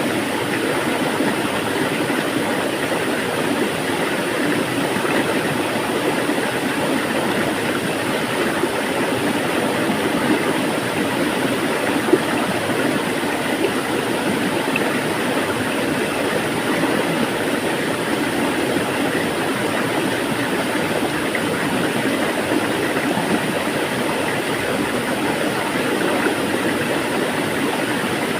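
Water flowing steadily, an even rushing sound with no let-up, with one brief tick about twelve seconds in.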